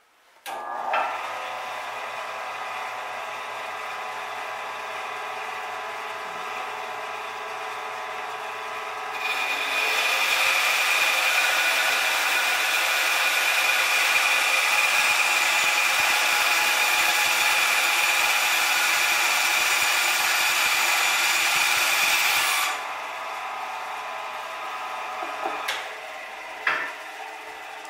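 A power tool's motor starts abruptly and runs steadily. From about nine seconds in it gets louder and harsher, with a high hiss and a steady whine, then drops back to its lower running level about twenty-three seconds in. There are sharp knocks just after it starts and again near the end.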